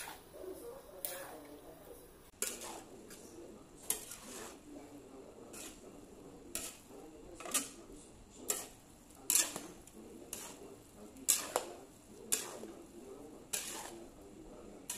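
Metal spatula striking and scraping a large wok while tossing a full load of fried flat rice noodles. It gives sharp clanks at an uneven pace of about one a second, with a low rustle of the noodles between them.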